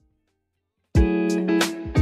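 Near silence for about a second, then background music with guitar and a drum beat starts suddenly.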